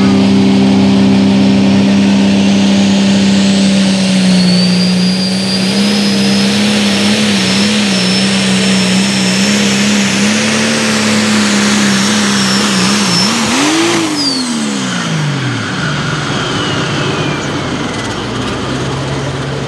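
Turbocharged John Deere diesel pulling tractor at full throttle under load, engine held at high revs with a high turbo whistle above it, the pitch wavering as the load changes. About fourteen seconds in the engine flares up briefly, then its revs fall steeply as the pull ends, and it settles into a lower, steady run while the turbo whistle winds down.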